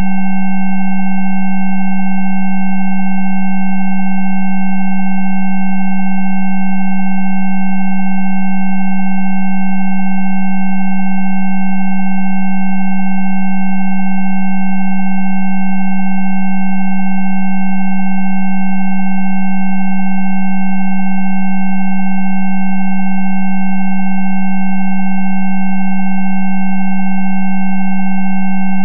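Electronically generated Rife frequency tones: a steady, unchanging blend of pure sine tones, a strong low hum with several fainter higher tones above it.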